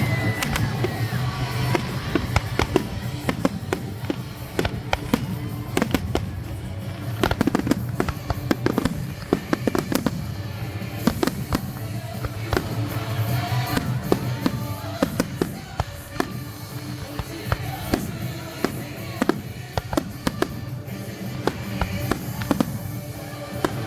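Fireworks going off in a rapid, irregular run of bangs and crackles, over background music.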